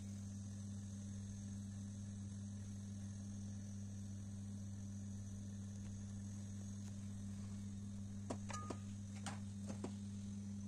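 Steady low electrical hum, two even tones with a faint high hiss, with a few light clicks between about eight and ten seconds in.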